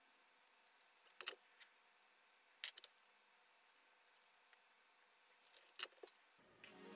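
Near silence with a few short, sharp clicks: one about a second in, a quick group of three a little later, and one more near the end. Electronic background music comes in right at the end.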